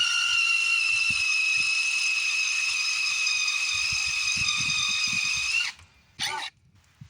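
Power drill running, its bit boring into a broken steel exhaust stud: a steady high-pitched whine that stops about three-quarters of the way through, followed by a short second burst.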